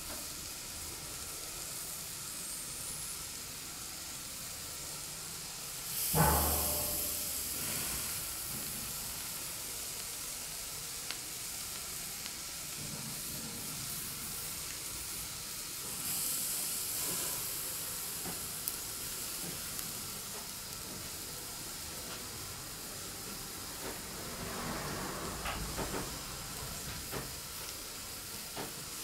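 Chestnuts roasting on a wire grill over hibachi charcoal, sizzling steadily as moisture steams out of their scored shells. There is a sudden sharp pop about six seconds in, followed by a short rush of hissing, and another surge of hissing later, with a few faint crackles.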